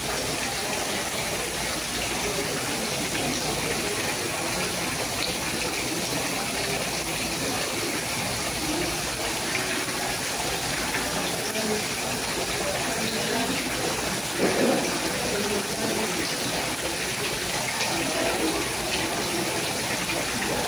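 Small fountain spouts splashing steadily into an ornamental pond, a continuous trickling and gushing of water. Faint voices murmur behind it, with one brief louder noise about two-thirds of the way through.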